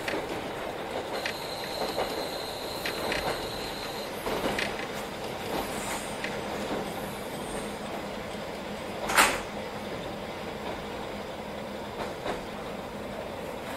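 Inside a JR Hokkaido KiHa 40 diesel railcar as it slows into a station: a steady rumble, with a thin high squeal of the wheels or brakes for a few seconds near the start and a single loud sharp bang about nine seconds in.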